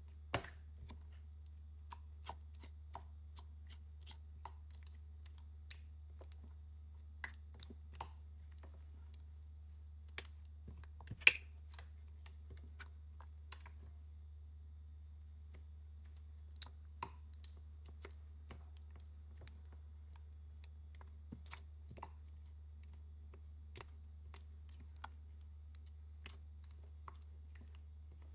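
Silicone spatula stirring and scraping thick pumpkin puree in a stainless steel saucepan: scattered clicks and taps as the spatula meets the pan, the sharpest about eleven seconds in, over a low steady hum.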